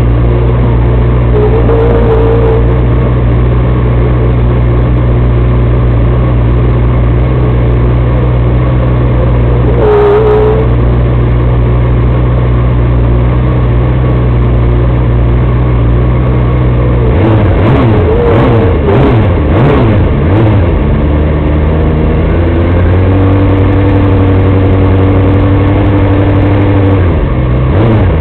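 Small off-road buggy's engine idling steadily while the buggy stands still. It is revved in several quick blips about two-thirds of the way in, then runs on steadily at a different speed.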